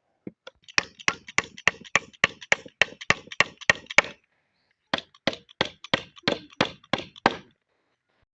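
A hand tool repeatedly striking wood: sharp knocks about three a second, in two runs broken by a short pause. The blows stop abruptly near the end.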